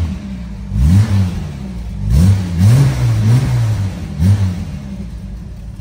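1962 Jaguar XKE's 3.8-litre inline-six revved in a series of quick throttle blips, one held a little longer in the middle, then dropping back to a steady idle near the end.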